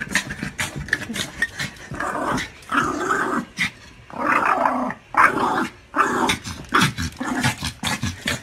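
Small dog growling in several bursts of about a second each, with short sharp noises between them.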